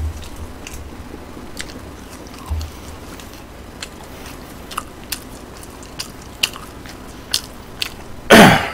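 Close-miked chewing of French fries: scattered sharp mouth clicks and smacks. A short loud rush of noise comes near the end.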